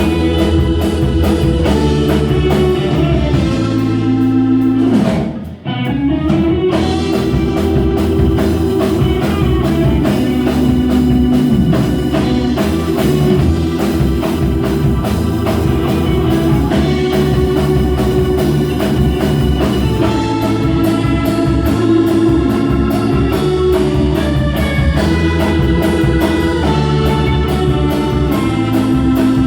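Rock music with electric guitar and drum kit, playing steadily, with a brief break about five seconds in.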